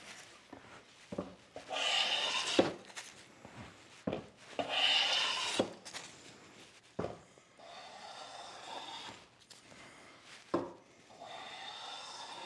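Bench hand plane taking shavings along a wooden vise jaw, smoothing off the mill marks. Four strokes, each a swish of about a second: the first two louder, the last two fainter. Light knocks between the strokes as the plane is set back for the next pass.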